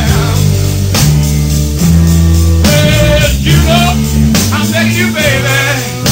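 Live blues-rock band music: sustained bass notes with a wavering lead line above them that comes in about halfway through.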